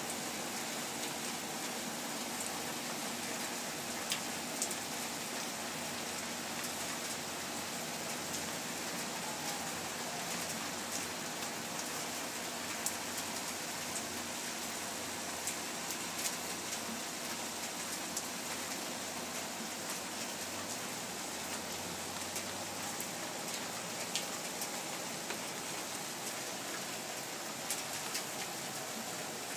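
Steady rain falling on wet pavement and puddles, with scattered sharp ticks of drops striking close by.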